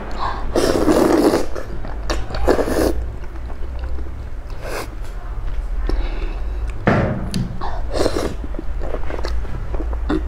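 A person slurping spicy instant noodles in sauce in several noisy pulls, with wet chewing and mouth clicks between, over a steady low hum.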